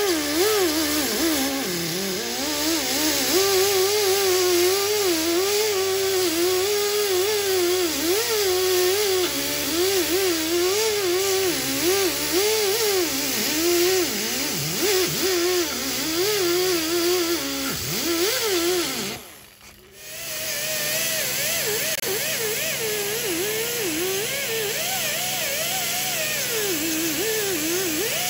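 Air-powered 90-degree die grinder with a Roloc-type abrasive disc whining as it scrubs old gasket off an engine block and exhaust flange, its pitch wavering up and down as the disc is pressed and eased. It stops for about a second about two-thirds of the way through, then runs again at a steadier pitch.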